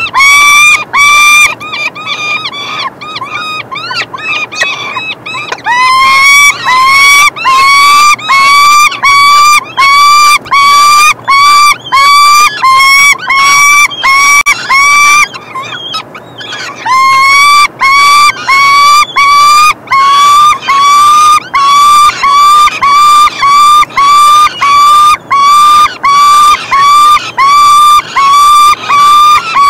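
Peregrine falcon chicks, 18 days old, begging for food with loud, repeated calls, about two a second, as they are fed. The calls grow fainter for a few seconds early on and break off briefly about halfway through.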